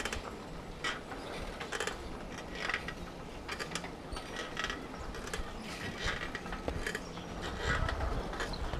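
A bicycle rattling and clicking while it is ridden over a rough surface, the clicks coming irregularly, with a steady low rumble underneath.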